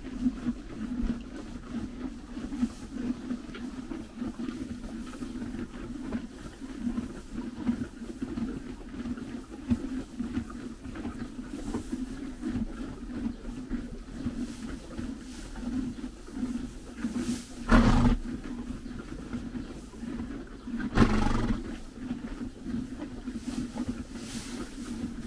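Horses chewing and crunching hay close up, with the hay rustling as they pull at it. Late on come two short, louder rushing bursts about three seconds apart.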